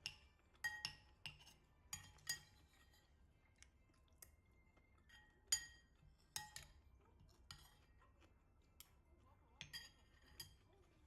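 Scattered light clinks of dishes and tableware, about a dozen separate strikes, each ringing briefly, with a louder clink about five and a half seconds in.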